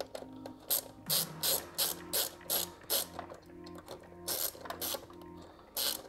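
Small screwdriver's ratchet clicking in quick back-and-forth strokes as an M.2 standoff is screwed into a PC motherboard: a run of about eight strokes, a pause, then three more near the end.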